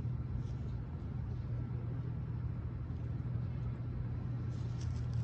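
Low, steady engine rumble with road traffic noise.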